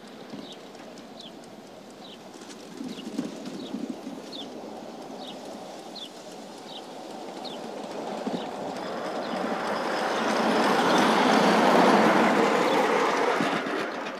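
A 5-inch gauge live steam model locomotive runs up and passes close by on the track. Its running noise swells to a peak about three quarters of the way through, then falls away. Earlier, a high chirp repeats about twice a second.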